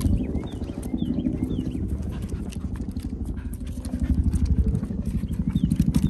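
Footsteps on a wooden boardwalk: a walker's shoes and two Jindo dogs' paws knocking hollowly on the planks in a steady, uneven patter.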